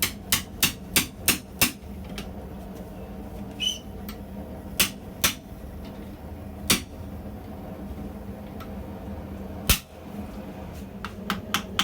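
Blacksmith's hammer striking forged steel: a quick run of about six blows, then scattered single blows with the loudest about two seconds before the end, and another quick run at the very end. The blows are splaying out the ends of a collared joint so they press on the collar and tighten it.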